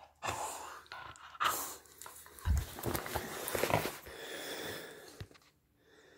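Patterdale terrier's noisy, breathy huffs as it play-wrestles with a hand, with a low thump about two and a half seconds in.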